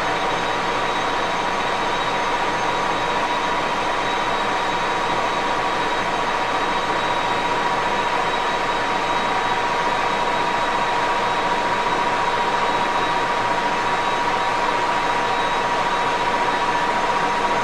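1941 Axelson gear-head engine lathe running steadily, with a constant whine over an even mechanical noise.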